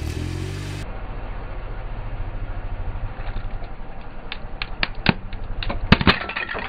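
A car's engine running at a low, steady rumble as the tyre presses slowly down onto small plastic toys. There are a few light clicks, then two sharp cracks near the end as the plastic breaks under the tyre.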